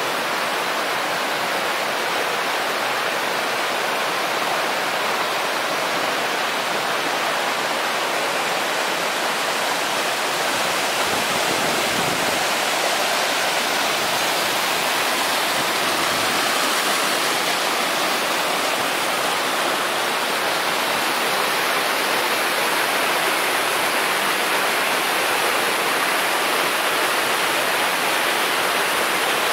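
Mountain stream cascading over rock slabs into a pool, a steady, even rush of falling water.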